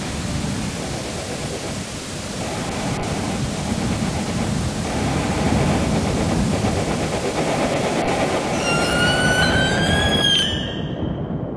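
A dense rumbling, rushing noise that swells in loudness. About eight seconds in, a whine rises in pitch over it, then breaks off abruptly about ten seconds in, leaving a duller, quieter rumble.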